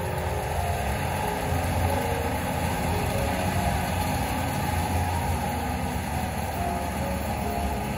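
A tractor's engine idling steadily, a low even hum.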